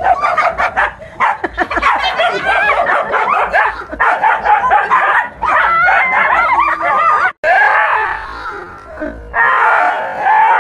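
Several dogs barking over one another, a dense run of sharp, high-pitched barks, with a brief break about seven seconds in.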